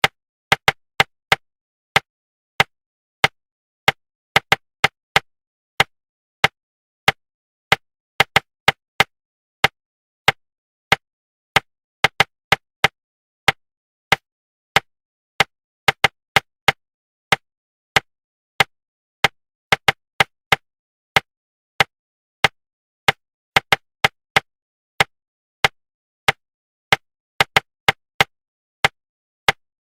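Rhythmic tapping for suppressing subvocalisation in speed reading: short, sharp knocks in an uneven pattern of single taps, pairs and quick runs of three or four, roughly one to three taps a second, with dead silence between them.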